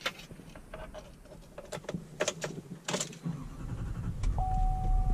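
Inside the cab of a 2018 Chevrolet Silverado 3500 with the 6.6-litre Duramax turbo-diesel V8 running: a few sharp clicks and knocks from handling the controls, then from about three and a half seconds in a low engine rumble rises. Near the end a steady electronic tone begins.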